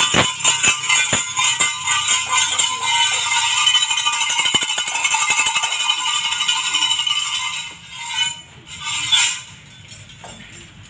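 Metallic jingling of the brass bells worn by a Tulu daiva (nema) performer. Strokes come about three times a second in the first few seconds, then a dense continuous jingle, then two short shakes before it dies down near the end.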